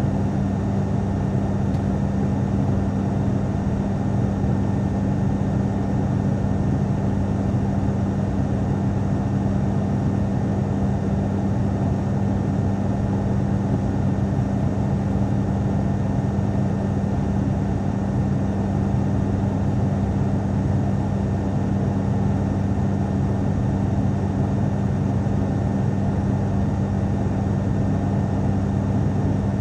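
Steady cabin drone of an ATR turboprop airliner in flight: an even low propeller hum with a strong low tone under a constant rush of air noise.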